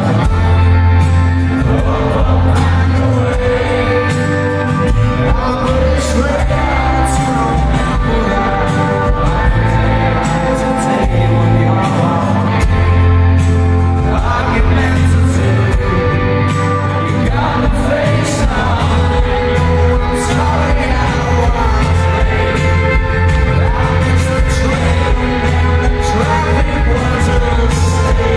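Live rock band playing an acoustic arrangement, with strummed acoustic guitar, drums and heavy bass under a male lead vocal, in a large arena.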